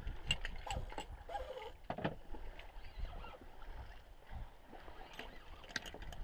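Water lapping against a boat's hull at sea, a steady low wash with scattered short clicks and creaks.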